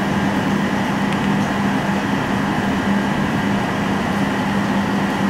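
Steady mechanical hum with a low drone and an even hiss, unchanging throughout.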